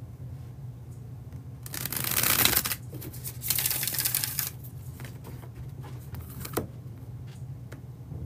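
A deck of tarot cards riffle-shuffled twice, each riffle a rush of flicking cards lasting about a second, followed by a few soft taps and clicks as the deck is handled and squared. A steady low hum runs underneath.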